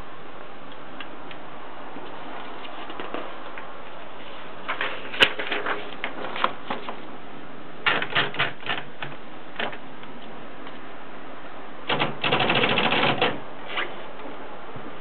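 Olivetti Valentine manual portable typewriter being typed on, keys striking in short irregular bursts, with one sharp loud strike about five seconds in and a dense rapid run of clatter about twelve seconds in.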